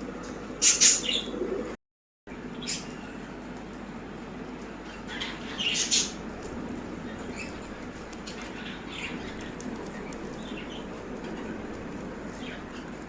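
Baazigar pet birds chirping in short calls, with two short, loud bursts of flapping, one about half a second in and one about six seconds in. The sound drops out briefly about two seconds in.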